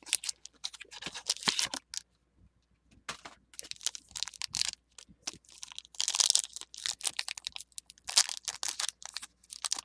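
Foil wrapper of a Pokémon booster pack crinkling and tearing as it is opened, in repeated crackly bursts, with a short quiet gap about two seconds in.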